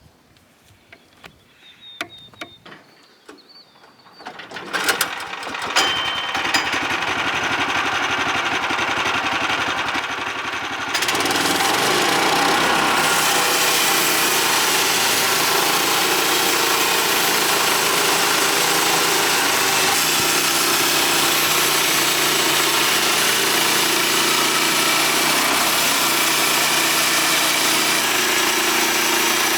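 Small gas engine of a Woodland Mills HM126 bandsaw sawmill starting up about five seconds in after a few light clicks, then running steadily. About eleven seconds in it steps up to a louder, steady run, the engine throttled up with the band blade driving.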